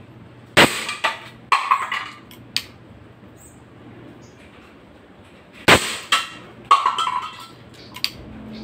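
Two shots from an ASG Dan Wesson 715 CO2 airsoft revolver, about five seconds apart, each a sharp pop followed by a few lighter clicks and short metallic clinks.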